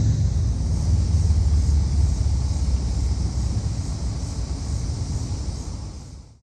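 Low, steady rumble of a vehicle engine running nearby, fading away over about six seconds and then cutting off.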